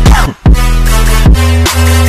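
Electronic background music with heavy sustained bass and a steady beat; it drops out briefly about a quarter second in with a falling sweep, then comes back in.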